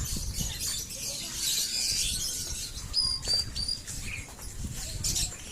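Many caged birds chirping together, a dense high-pitched chatter, with a few short, clear, high whistled notes about three seconds in.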